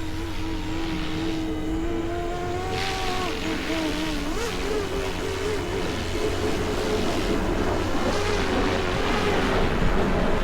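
Electric RC model helicopter in flight: a motor and rotor whine whose pitch rises about two to three seconds in, then wavers up and down as it manoeuvres.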